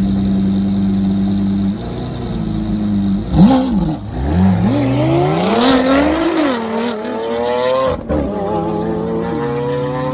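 A Lamborghini Aventador and a Nissan GT-R idle side by side, then launch together and accelerate hard, with a loud bang near the launch. Their engine note climbs in pitch and drops back at each upshift as they pull away.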